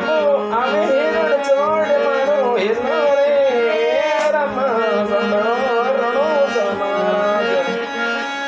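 Instrumental break in a Rajasthani devotional song. A melody instrument plays a winding, heavily ornamented line over steady held drone notes, with a hand-drum beat underneath.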